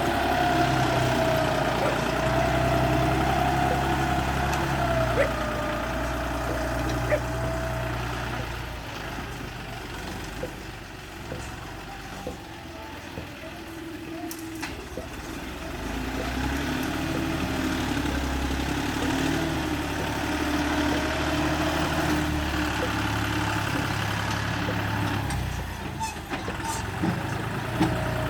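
Bulldozer's diesel engine running, its pitch rising and falling as it works, easing off about ten seconds in and building again at around sixteen seconds, with occasional short knocks.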